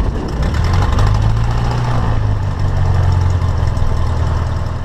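Cessna 172's piston engine and propeller running, heard as a loud steady low drone whose pitch shifts slightly about a second in and again partway through, then stops abruptly at the end.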